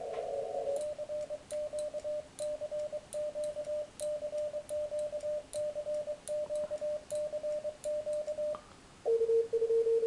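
Elecraft K3 transceiver's CW sidetone: Morse code sent by hand on a key, one tone switched on and off in dots and dashes, with the key's contacts clicking at each stroke. It follows a moment of receiver hiss through a narrow CW filter. The keying stops near the end, and a steady, lower tone comes on.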